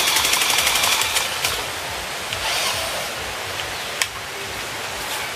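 Battery-powered toy car's small electric motor and plastic gears whirring with a fast, even ticking for about the first second, then a steady quieter hiss. One sharp click about four seconds in.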